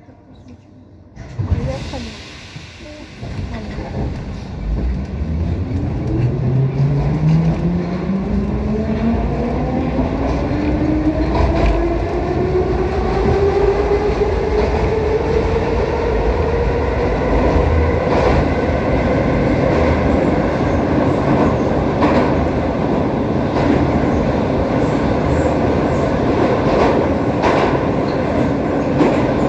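Saint Petersburg Metro train pulling out of a station: a sharp knock just after the start, then the traction motors' whine climbs steadily in pitch for about twelve seconds as the train gathers speed and levels off. Under it runs a steady rumble of wheels on rail in the tunnel, with scattered clicks.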